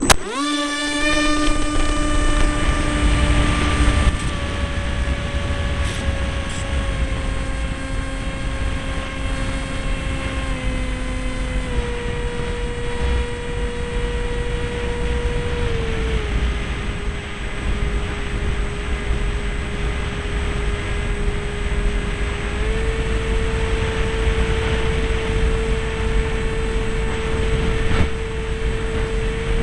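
Motor and propeller of a SeaDart radio-controlled seaplane, heard from its onboard camera, whining up sharply as the throttle opens for takeoff from the water. It then holds a steady whine that steps down in pitch a few times and rises again later, over a steady low rumble of wind on the microphone.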